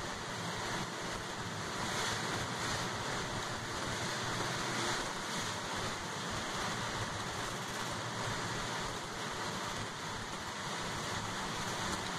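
Steady road noise heard inside a moving transit bus on a wet road in rain: tyres hissing on the wet surface under the engine's running.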